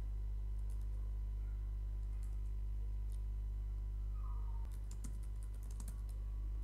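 Steady low electrical hum in the recording, with scattered faint clicks that cluster about five seconds in.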